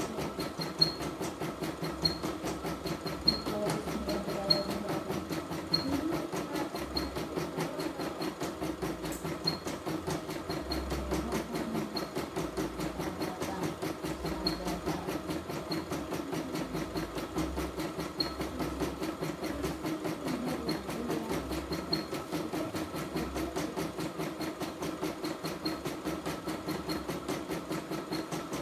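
CNY E960 computerized embroidery machine stitching a design: rapid, even needle strokes over the steady hum of its motor, with a faint tick about once a second.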